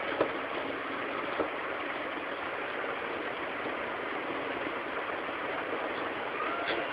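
Steady background noise with two light clicks, about a quarter second and a second and a half in, as a small bolt and nut are handled on a plastic bracket fitted to a metal pipe.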